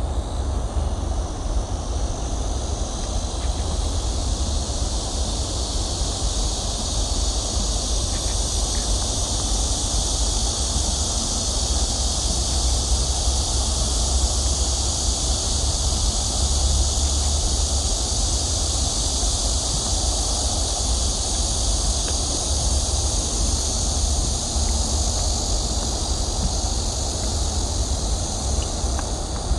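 Steady, high, layered chorus of insects over a low rumble.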